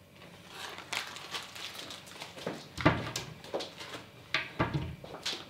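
Household handling clatter: light clicks and knocks of objects being picked up and set down, with a dull thump about three seconds in and another about a second and a half later.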